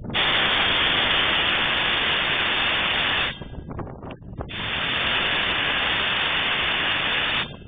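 Compressed air hissing out of an air horn system in two long blasts of about three seconds each, with a short break between and no horn tone, as the tank pressure drops to around 5 psi.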